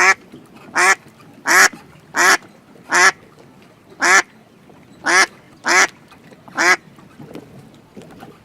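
A duck quacking: a series of about nine short, separate quacks, roughly one every second, stopping about seven seconds in.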